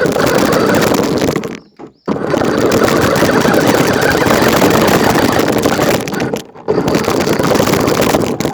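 Toy remote-control car driving over the ground, its small motor and wheels making a loud, noisy whir. The sound cuts out briefly twice.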